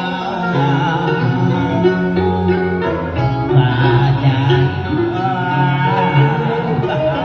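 Instrumental break of a Vietnamese song: accompaniment music playing with a melody over a steady bass line, and no singing.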